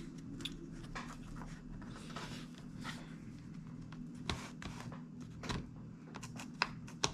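Plastic pry tool scraping along the seam of a tablet screen's plastic trim, with a few sharp clicks as the trim's clips are worked loose. Faint throughout.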